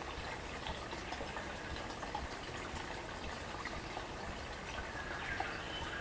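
Small forest stream gurgling and trickling over stones, a steady babble of water with many small bubbling splashes. A brief bird call sounds near the end.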